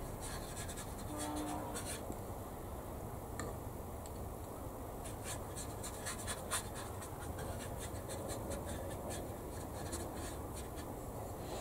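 Faint scratching and small clicks from Micro Set decal-setting solution being spread over the plastic wing of a model aircraft.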